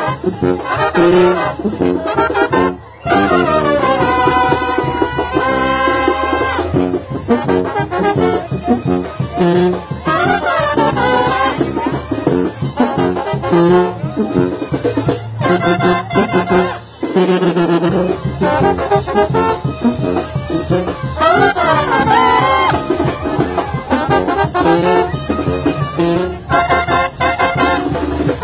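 Mexican banda brass band playing loud and close: trumpets, trombones and sousaphones together, with two short breaks in the music, about 3 and 17 seconds in.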